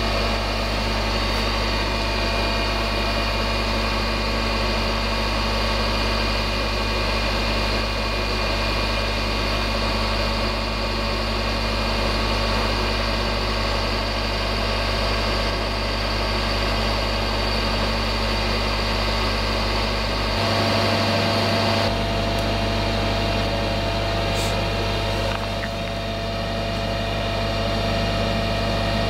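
Ural 4320 truck's diesel engine running steadily at idle while its hydraulic knuckle-boom crane is worked, a continuous hum with several steady higher tones over it.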